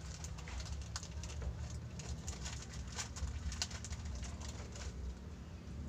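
Faint clicks and rustles of fingers handling nylon fishing line against a PVC pipe, over a steady low hum.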